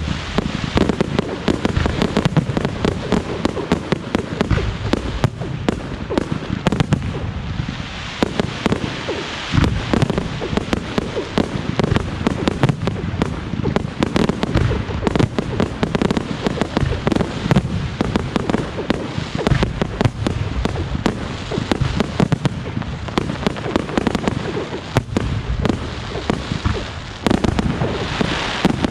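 Fireworks display: a dense, continuous run of shell bursts, bangs and crackles, many a second, with hardly a pause.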